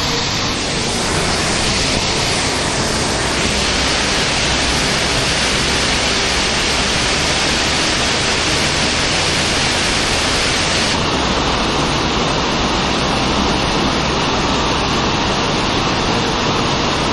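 Steady, loud rush of flowing creek water. About eleven seconds in, the sound turns slightly duller, with less hiss at the top.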